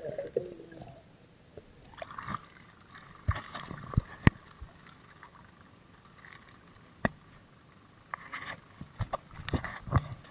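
A brief underwater gurgle, then scattered sharp knocks, taps and rustles from hauling and handling the fish trap's netting and bamboo frame, thickening into a quick cluster of knocks near the end.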